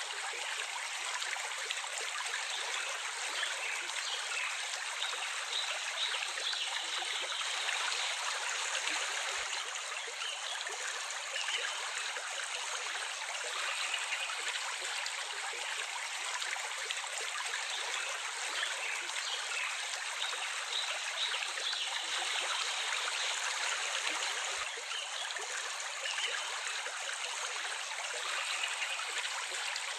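Stream water flowing and babbling steadily, a constant light rush with no deep rumble.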